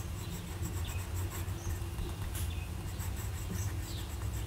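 Medium stainless steel nib of a Parker IM fountain pen writing cursive on Rhodia dot-grid paper: a quick, irregular run of short scratchy pen strokes.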